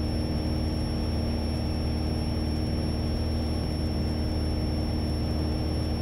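Steady drone of a Piper PA-28 Warrior's four-cylinder piston engine and propeller in cruise, heard inside the cabin, with a constant thin high whine over it.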